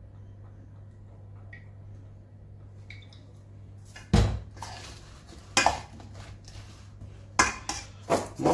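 Metal spoon clanking against a stainless steel mixing bowl as chopped vegetables are stirred with oil. There are several sharp clanks from about halfway through, over a steady low hum.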